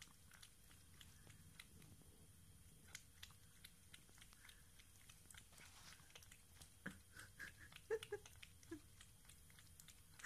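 Siamese cat lapping water: faint, irregular wet clicks of its tongue, with a few short louder sounds about seven to nine seconds in.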